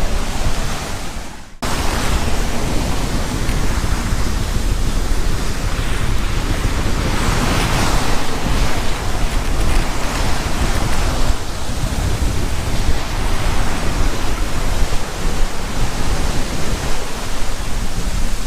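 Strong wind and rushing waves around a sailboat at sea, with wind buffeting the microphone: a loud, steady rush that swells about seven to eight seconds in. A short stretch of music fades out in the first second and a half.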